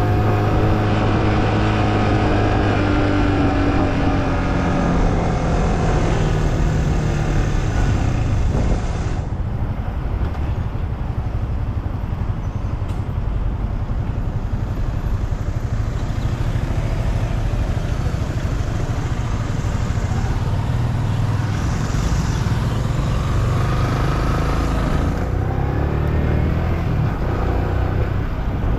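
Yamaha M-Slaz motorbike's 155 cc single-cylinder engine running while riding. Its pitch falls over the first few seconds as the bike slows, settles lower and steadier, then rises again near the end.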